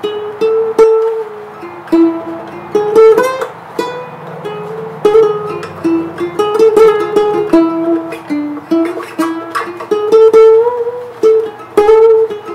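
Mahogany ukulele with nylon strings played by hand: a picked melody of single notes with strummed chords mixed in.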